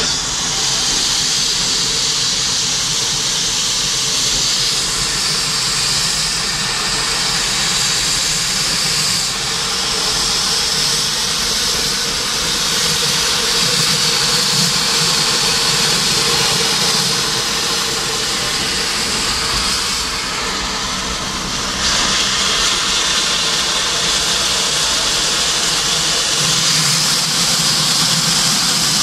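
Steam locomotive 001 180-9 moving off very slowly, with steam blowing from its open cylinder drain cocks in a steady loud hiss. The hiss dips briefly about twenty seconds in and then comes back.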